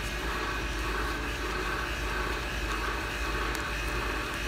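Steady mechanical drone and hiss with a low hum underneath, and a few faint crinkles of plastic bagging film being handled near the end.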